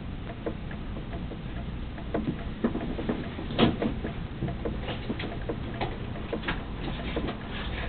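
Scattered clicks and taps over a steady low hum, with a louder clatter about three and a half seconds in and the clicks coming more often in the second half.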